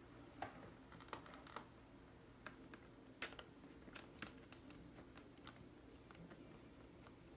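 Faint, irregular small clicks and taps from hand work on a laptop screen assembly: small screws being driven and plastic parts being handled.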